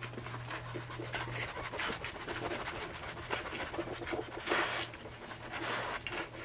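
Newborn French bulldog puppies nursing: irregular snuffling, suckling and rustling of fur against the mother's belly.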